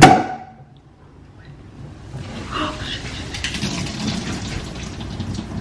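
A Prosecco cork pops out of the bottle with a sharp pop. About two seconds later comes a steady crackling fizz of foaming sparkling wine.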